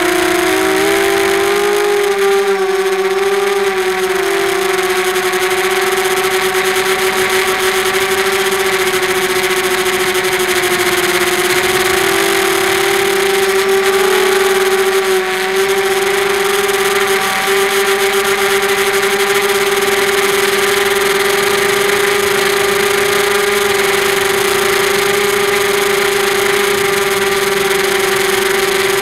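Sunnysky 2300KV brushless motors driving 5x4 propellers on a QAV250 quadcopter in flight, heard close from its onboard camera. The whine is steady and loud, and its pitch wavers slightly with throttle.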